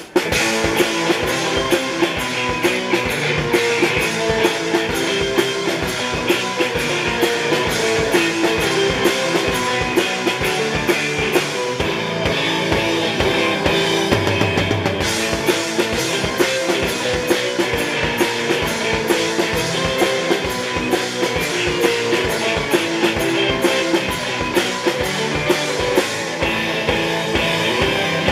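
Live rock band playing an instrumental passage without vocals: a drum kit keeping a busy, steady beat under amplified electric guitar and a handmade canjo.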